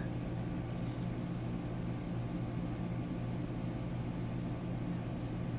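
Steady low hum with an even hiss from a fan running, unchanging throughout.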